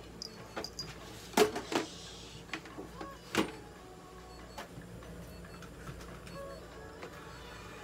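A few sharp clicks and knocks, the loudest about one and a half and three and a half seconds in, over a steady low hum, with faint short high beeps now and then.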